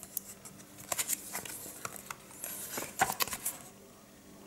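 Paper pages of a hardcover comic-book collection rustling as they are handled and turned: scattered short crackles, bunched about a second in and again around three seconds.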